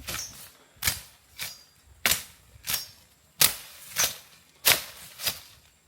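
A steady series of sharp, cracking strikes, about nine of them, a little under two a second, evenly paced like repeated hammer or blade blows.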